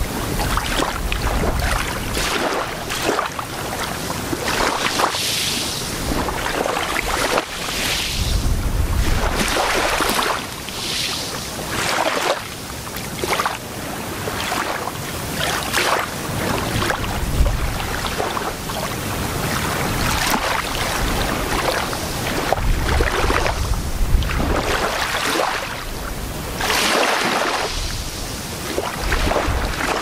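Small gentle waves lapping and washing up on a sandy beach, a soft hiss that swells and eases every second or two. Wind buffets the microphone now and then with a low rumble.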